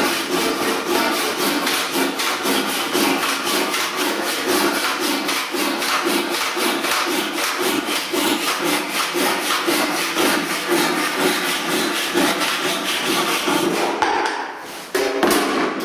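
Handsaw cutting through the timber door jamb, the overhanging piece at its top, in rapid, even strokes that stop about fourteen seconds in.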